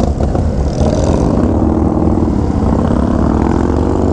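Motorcycle engine running under way in a group of motorcycles, its note rising as it accelerates and then easing off about two seconds in.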